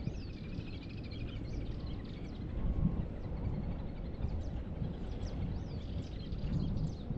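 Small birds chirping and trilling: a run of quick trills in the first couple of seconds, then short high chirps scattered through, over a steady low rumble.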